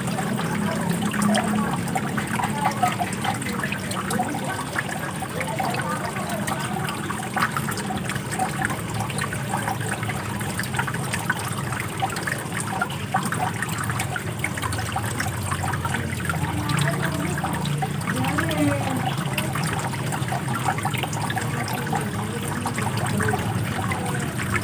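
Running water flowing steadily without a break.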